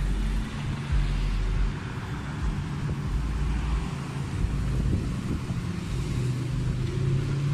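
Wind buffeting the microphone in uneven low thumps during a bike ride, over a steady hum of passing road traffic.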